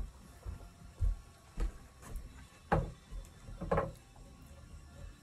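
Footsteps and handling knocks: a few dull thumps about a second apart, the two near the middle with a brief clatter or rustle.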